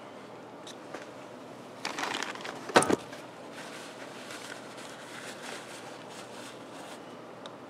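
A paper towel handled: a rustle, then a short sharp crinkle about three seconds in, followed by faint rustling as the towel wipes a syringe.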